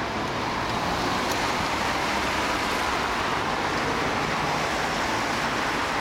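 Steady rushing noise of wind and tyres on asphalt, picked up by a handlebar-mounted camera on a road bike while riding.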